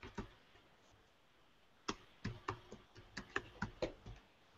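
Typing on a computer keyboard: a couple of keystrokes, a short pause, then an irregular run of about a dozen sharp key clicks.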